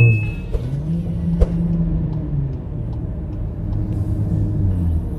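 Cabin noise of a Volkswagen Jetta 1.4 turbo cruising on the highway: a low engine drone over road rumble, the engine note dropping in pitch about halfway through. There is a single sharp click about a second and a half in.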